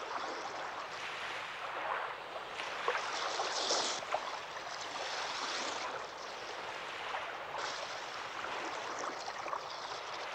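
Sea water splashing and rushing, a cartoon sound effect for a small yacht under way, shifting in texture every couple of seconds.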